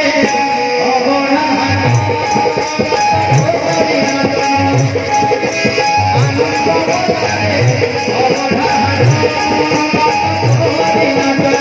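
Instrumental passage of an Odia devotional bhajan: a harmonium holds and plays the melody over tabla. Deep drum strokes fall about every second and a half, and a fast, steady high ticking of small percussion joins about two seconds in.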